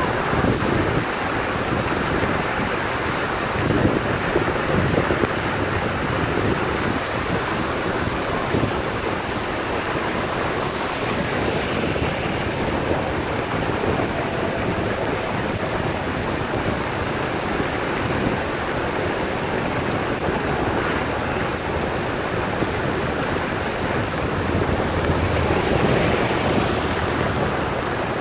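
Steady rushing noise of rain and wind buffeting the microphone while moving along a wet road.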